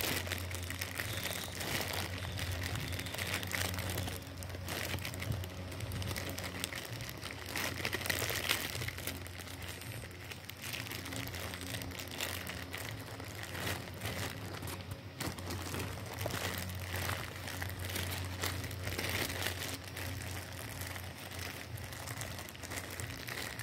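Plastic packaging bags crinkling and rustling continuously as the wrapped parts of a toy figure are handled and opened.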